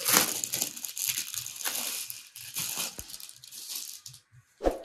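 Clear plastic packaging crinkling and rustling as a folded suit fabric is pulled out of its bag, stopping about four seconds in. A single short thump follows near the end.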